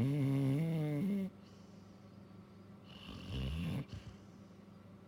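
Sleeping Labrador snoring: a long snore with a wavering pitch at the start, then a shorter, rougher snore about three seconds in.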